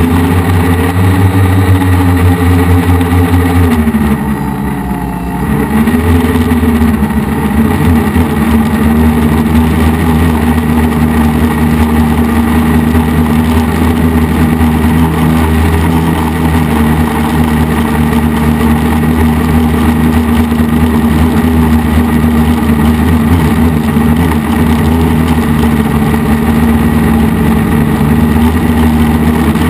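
F450 quadcopter's four electric motors and propellers buzzing in flight. The pitch and loudness drop briefly about four seconds in, then climb back to a steady buzz.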